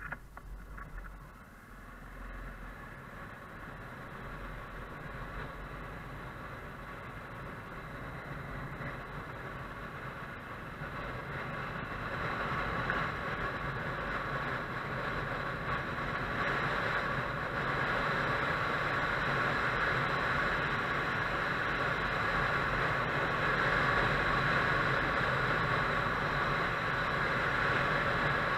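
Motorcycle riding, its engine and the wind rushing past heard from an on-bike action camera, growing steadily louder over the first two-thirds and then holding steady.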